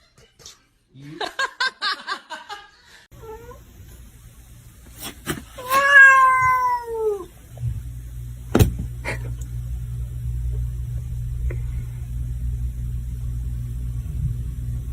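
Cat meowing: a run of short rapid calls about a second in, then one long, loud meow falling in pitch about six seconds in, over a low steady hum.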